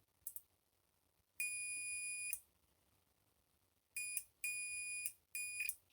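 Multimeter continuity tester beeping as contacts close: a steady high beep lasting about a second, then three shorter beeps in quick succession near the end. Each beep signals a closed circuit across the mouse-button contacts being tested.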